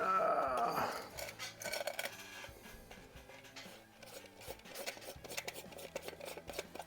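Small clicks, taps and rubbing of hands handling a PCP air rifle and its parts at a workbench, after a brief wavering whine in the first second.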